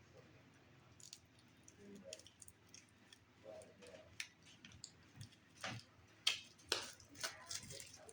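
Trading cards and their plastic wrapping being handled and opened: scattered soft crinkles and clicks, with a few sharper crackles about six to seven seconds in.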